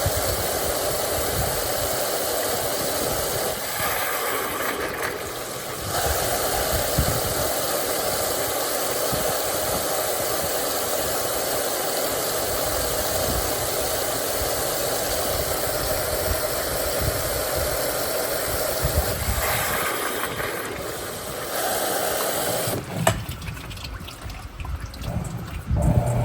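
Mueller Popmatic 8 kg top-loading washing machine agitating its load in water, the motor and churning water running steadily. Near the end the agitation stops, and a few clicks and knocks follow.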